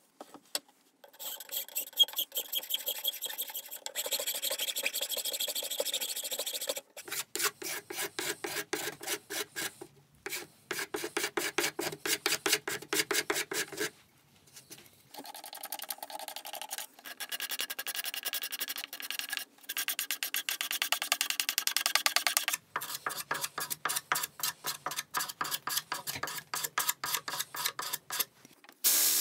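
Hand files shaping a birch saw handle: the metal teeth rasp across the wood in quick repeated strokes. The strokes come in runs of a few seconds, broken by short pauses.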